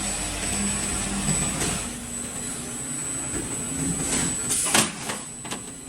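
Roll forming machine for C/Z-section steel profiles running, a steady mechanical rumble and hiss with a thin high whine, and one sharp loud knock near the end.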